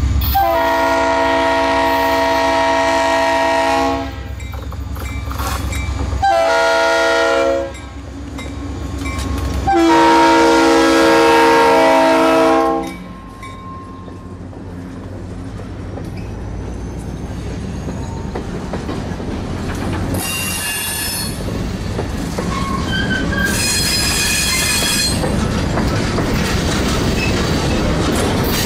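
Diesel freight locomotive's air horn sounds a long, a short and a long blast over the engine's rumble. After that, freight cars roll past with the clickety-clack of wheels on the rail. Brief high wheel squeals come twice on the curve, about twenty and twenty-four seconds in.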